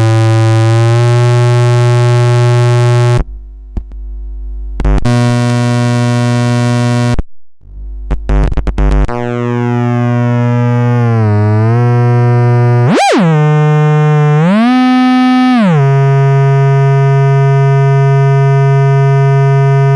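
Homemade CEM3340 voltage-controlled oscillator sounding a raw, buzzy synth tone rich in harmonics. It cuts out twice in the first eight seconds, leaving a low hum, and crackles as it comes back; later its pitch dips briefly, spikes sharply up and back, and swoops up and down before settling on the same steady note.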